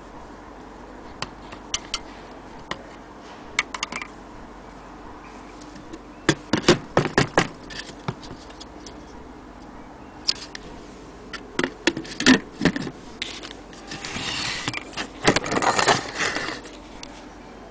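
Scattered light clicks and taps of hands and a small tool working on a brass anniversary clock movement and its glass dome, in clusters about six and twelve seconds in. Near the end there is a stretch of rubbing and knocking handling noise.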